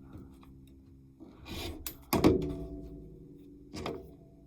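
Tools being handled on a quilting cutting table: a short sliding swish, then a sharp knock with a brief ringing hum as something is set down hard, and a lighter knock near the end.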